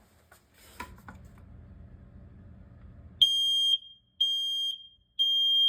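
Smoke alarm sounding on its test button: three loud, high-pitched beeps of about half a second each, a second apart, in the temporal-three fire-alarm pattern. Before the beeps come a few seconds of faint handling rustle and a click.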